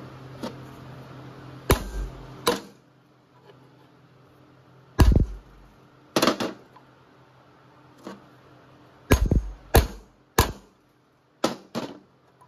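Hammer striking a bearing race driver, driving a new rear axle bearing into the axle housing of a Honda Rancher 350 ATV: about a dozen sharp metal-on-metal blows in irregular singles and quick pairs.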